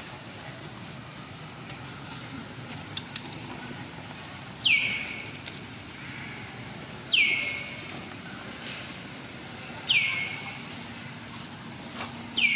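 A bird calling four times, about every two and a half seconds: each call a loud, sharp note that slides downward and then levels off briefly.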